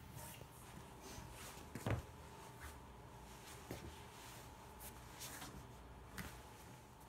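Footsteps and shuffling in rubber slide sandals and socks on a tile floor: a few soft scattered taps and scuffs, the loudest a thump about two seconds in, over a faint steady hum.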